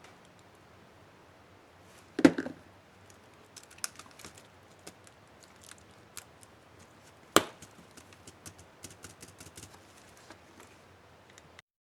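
HP DV4 laptop keyboard key cap being snapped onto its clips: two sharp snaps about five seconds apart, with a run of light plastic clicks and taps around them.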